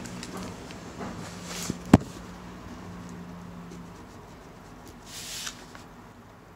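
A sharp knock about two seconds in as the phone is set down on a hard surface, over a faint low hum that fades out around four seconds. A short hiss follows about five seconds in.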